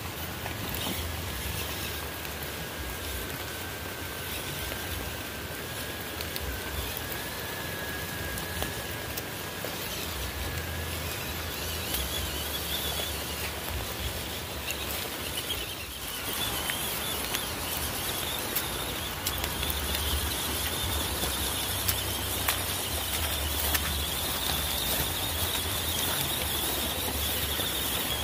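Small electric WPL C24 RC off-road truck driving: a steady motor and gear whine that sits higher in pitch in the second half, with scattered small clicks and a low rumble.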